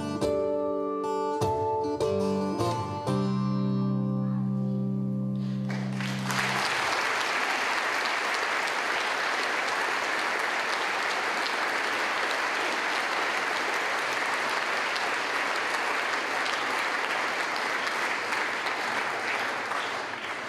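The last notes of a plucked acoustic string instrument, ending on a held chord that stops about six and a half seconds in. An audience applauds steadily from about six seconds in to the end.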